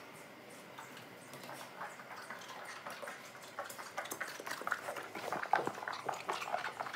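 German Shepherd moving about and nosing up close: a run of quick, irregular soft noises that grows louder through the second half.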